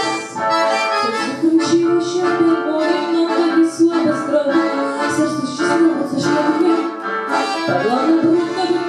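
A woman singing into a handheld microphone, accompanied by an accordion.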